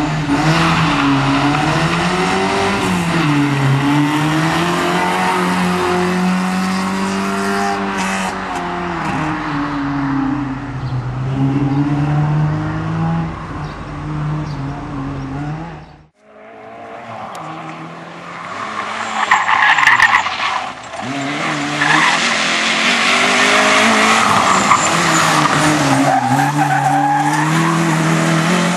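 Opel Corsa rally car engine revving hard, its pitch rising and falling through the gears. The sound cuts out abruptly about halfway through. A second run follows with more tyre skidding noise and a loud surge a few seconds after the cut, before the engine note returns.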